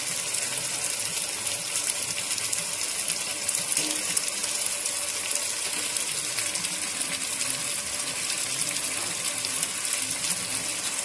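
Pea-stuffed kochuri (koraishutir kochuri) deep-frying in hot oil in a kadai: a steady sizzle full of fine crackling.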